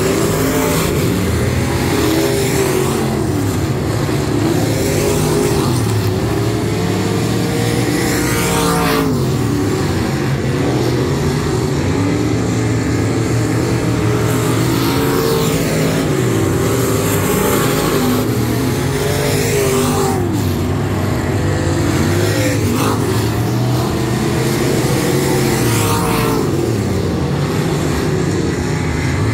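Several dirt-track limited modified race cars running laps together, their engines rising and falling in pitch again and again as they accelerate off the turns, back off and pass by.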